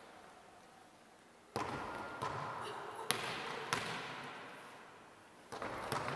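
Volleyballs knocking off forearms and bouncing on a wooden gym floor as players dive forward and slide, each dive a sudden scuffing rush that dies away in the hall's echo. The first dive comes about a second and a half in, with sharp knocks a little later and another dive near the end.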